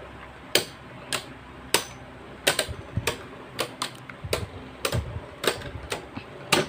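Two Beyblade Burst tops, Dynamite Belial among them, spinning and clashing in a plastic stadium: sharp clicks as they strike each other, about one every half second at first, then coming faster, around three a second, from about halfway on.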